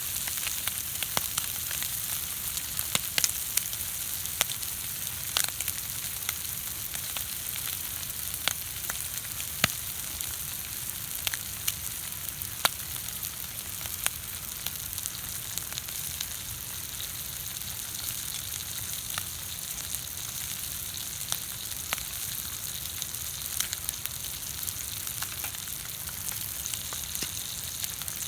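Food frying in a hot pan over a campfire: a steady sizzle with frequent sharp pops and crackles.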